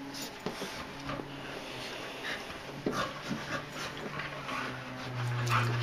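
A Keeshond and Finnish Lapphunds panting and scuffling as they play-wrestle. A low steady drone sets in and grows louder near the end.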